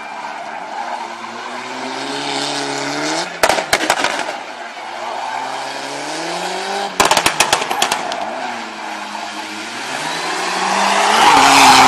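Big-turbo Mitsubishi Lancer Evo rally car's turbocharged four-cylinder engine revving hard in three rising pulls. The first two pulls each end in a short burst of rapid bangs, about three and a half and seven seconds in.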